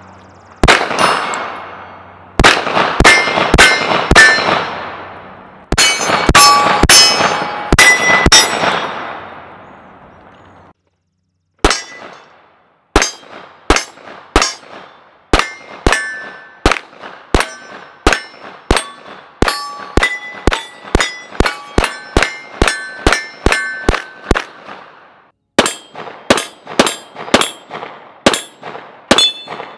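Taran Tactical STI 2011 Combat Master 9mm pistol firing strings of rapid shots, with pauses between strings. Steel targets ring out briefly after hits.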